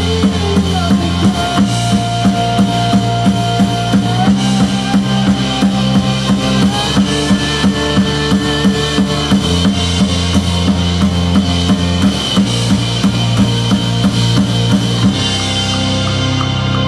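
Band music: a drum kit keeping a steady beat over a bass line, with long held higher notes on top.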